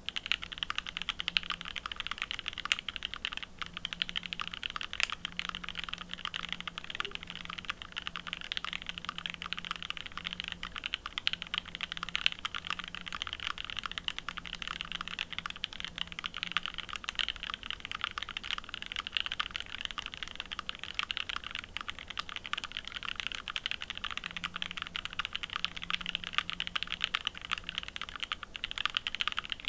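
Fuji 65 mechanical keyboard with lubed Mauve linear switches in an aluminium full plate and GMK Olivia++ keycaps, typed on quickly and without pause: a dense, steady run of keystroke clacks.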